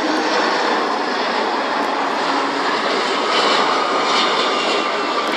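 Jet engines of a Boeing 757-300 on short final and landing, a steady roar with a faint whine coming in about halfway.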